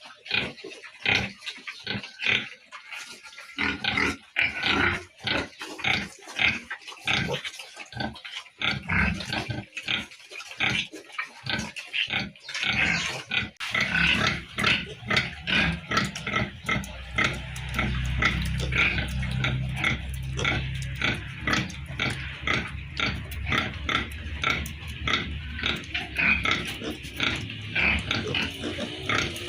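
Piglets grunting and squealing in many short, quick calls. About halfway through the calls grow denser and a low steady rumble comes in beneath them.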